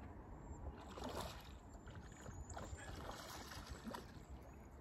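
Water splashing and lapping as a hooked bass is played near the surface beside a boat, with several brief splashes over a low steady rumble.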